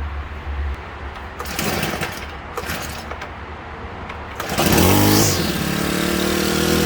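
Husqvarna 324L string trimmer being pull-started on its newly replaced carburetor: a couple of cord pulls, then the engine catches about four and a half seconds in, revs briefly and settles into a steady idle.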